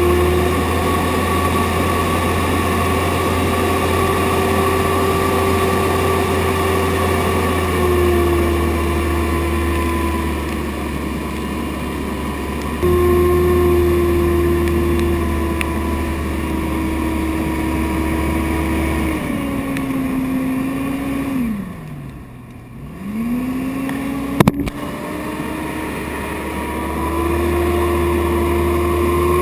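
Small motorboat's engine running steadily under way. About twenty seconds in, the pitch falls away sharply almost to idle and then climbs back up, and a single sharp knock comes a couple of seconds later.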